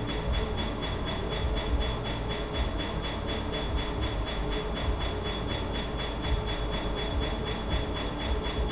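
Tattoo-removal laser firing a steady train of sharp pulses, about five a second, over the steady rush of a cold-air cooling machine and a constant high whine from the equipment.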